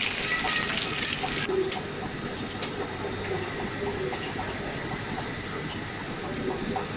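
Oil sizzling in a frying pan of fried chicken pieces, an even hiss that cuts off abruptly about one and a half seconds in. After that only a quiet background with a low hum and a few faint clinks.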